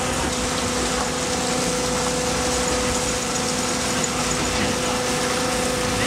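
Coal belt conveyor running: a steady mechanical noise with a constant low hum.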